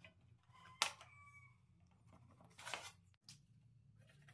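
Quiet handling of a circular saw with its motor off: a sharp click about a second in, followed by brief squeaks, then a short scrape and a small click.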